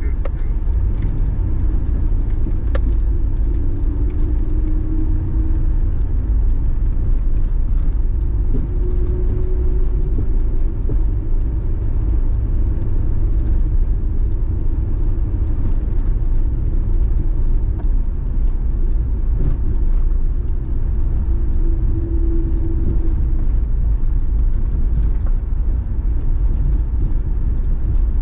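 Mercury Mountaineer SUV driving, heard from inside the cabin: a steady low rumble of engine and tyres, with light rattles and clicks. A faint whine comes and goes a few times.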